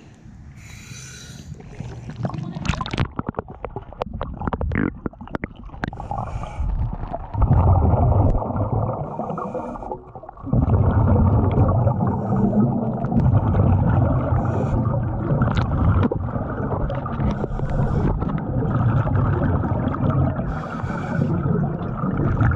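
Scuba diver breathing through a regulator underwater, heard through a submerged camera: a clatter of splashes and knocks at first, then from about seven seconds in a dense, muffled rumble of exhaled bubbles gurgling past the microphone, with a short break near the middle.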